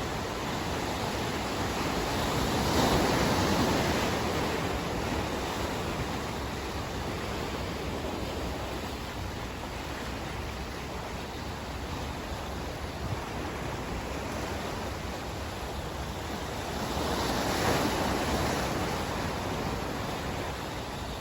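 Sea surf: waves washing in with a steady wash, and two louder swells as waves break, about three seconds in and again near the end.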